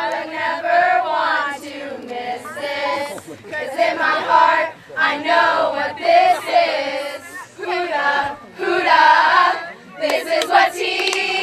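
A group of teenage girls singing together in unison. About ten seconds in, the singing gives way to cheering and shouting.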